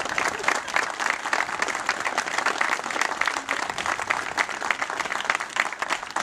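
A crowd applauding steadily, many hands clapping at once, right after the couple's kiss.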